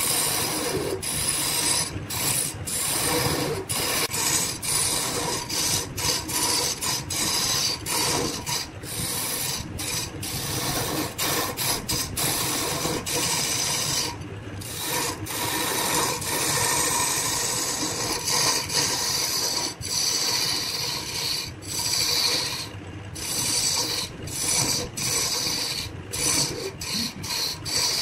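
Wood lathe spinning a large pale wooden blank while a hand-held turning chisel cuts into it: a continuous scraping hiss of the tool shaving the wood, broken by many short gaps.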